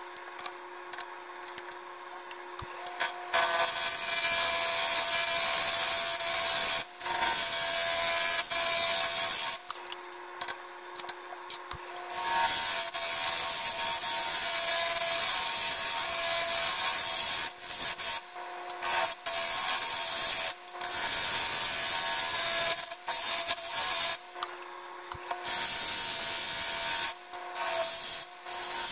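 Wood lathe running, with a hand-held turning gouge cutting the spinning wood blank in repeated passes: a loud scraping, hissing cut that starts about three seconds in and stops and starts several times, the lathe's motor hum heard alone in the pauses.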